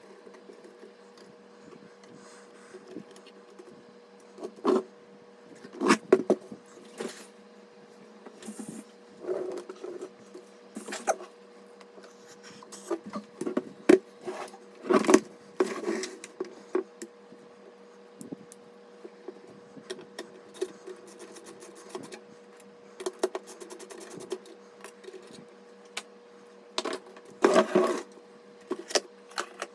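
Scattered, irregular clicks, taps and knocks from hands at work, a few in quick clusters, over a steady faint hum.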